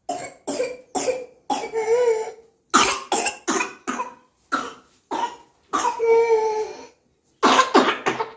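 A person coughs in a rapid fit of about fifteen short, harsh coughs, with two longer drawn-out sounds in between. It is a whooping-type cough, which the homeopath calls an inspiratory whoop, although lab tests for whooping cough came back normal.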